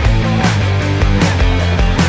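Background rock music with a steady beat, overlaid on the video.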